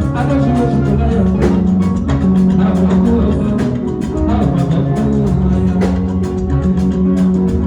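Music with a steady drum beat, a prominent bass line and guitar, played loud.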